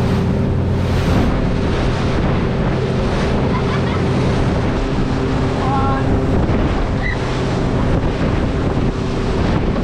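Boat running at speed through the swell: rushing water and spray off the hull with heavy wind on the microphone, over the steady drone of a Honda BF150 four-stroke outboard.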